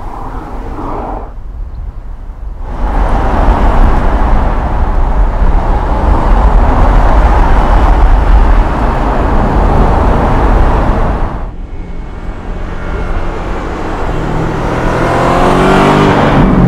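Audi S7 Sportback's twin-turbo V8 on the move: a loud, steady rush of engine and tyre noise that starts about three seconds in, then near the end the engine note climbs as the car accelerates.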